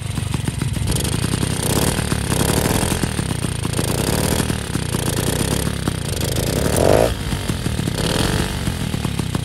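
Bullet Train 66/80cc two-stroke motorized-bicycle engine running just after starting on its electric starter, with a brief swell in loudness about seven seconds in.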